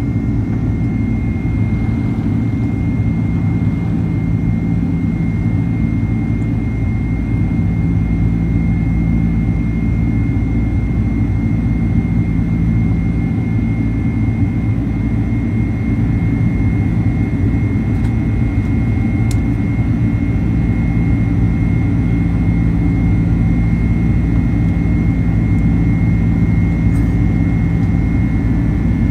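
Boeing 767-300 jet engines at climb power just after takeoff, heard from inside the cabin over the wing: a loud, steady low drone with a thin, steady high whine.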